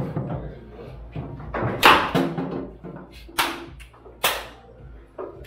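Foosball table in play: five sharp knocks of the ball struck by the plastic figures and hitting the table, with rods clacking. The loudest knock comes about two seconds in.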